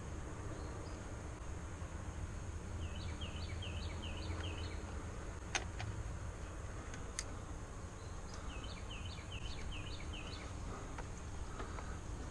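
A songbird singing a quick phrase of about six slurred notes, twice, over a steady high insect drone and low outdoor rumble. Two sharp clicks come in the middle.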